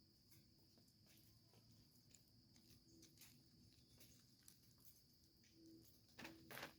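Near silence: faint, steady high chirring of crickets, with scattered soft clicks and two louder clicks near the end.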